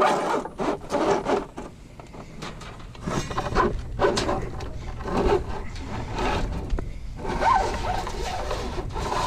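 Construction debris, wood boards and shingles, scraping and knocking together as a long thin metal rod is dragged out from under the pile in a roll-off dumpster, in a run of irregular scrapes and clatters.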